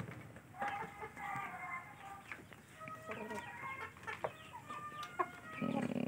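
A flock of Aseel chickens clucking, with short, scattered, overlapping calls.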